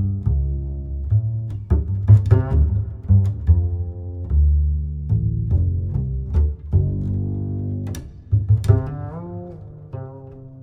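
Instrumental background music carried by a low plucked bass line, with notes changing in steps.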